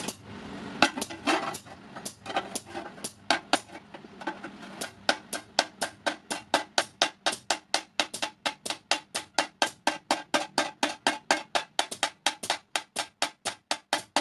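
A hand hammer beats a hot iron plate on an anvil as a thali is forged. The blows ring like metal. For the first few seconds they come irregularly, then they settle into a steady rhythm of about five blows a second.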